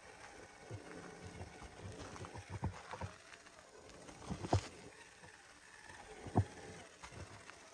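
Traxxas TRX-4 RC crawler creeping over rocks, roots and dry leaves: the tyres crunch through the leaf litter and the chassis and wheels knock irregularly on rock, with two louder knocks in the second half, over a faint motor whine.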